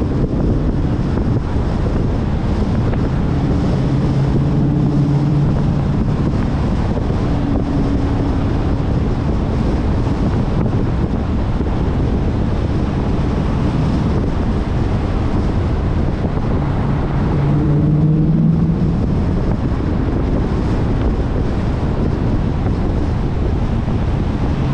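Wind buffeting a car-mounted camera microphone at driving speed, with the low hum of the Dodge Challenger R/T's 5.7-litre HEMI V8 and road noise underneath. The engine's hum comes through more strongly twice, about four seconds in and again around eighteen seconds.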